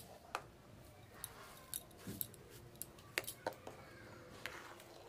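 Metal spatula clinking and scraping against a wok while stirring hot milk as calcium lactate curdles it into chhana: light, sharp clicks at irregular intervals.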